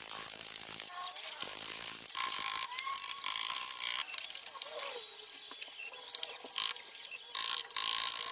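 Mechanical tool noise that starts and stops in several bursts of one to two seconds each.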